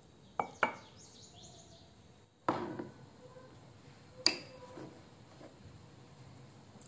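Kitchenware clinking and knocking: two quick clinks near the start, a heavier knock about two and a half seconds in, and a sharp clink with a short ring about four seconds in.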